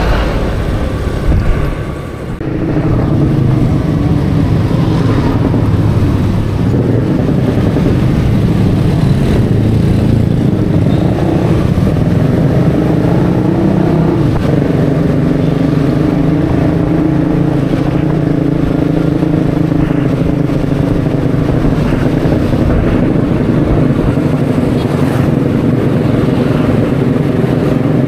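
Suzuki Burgman Street 125 EX scooter's single-cylinder engine running steadily while cruising at about 25 km/h, over road and wind noise. The sound dips briefly about two seconds in.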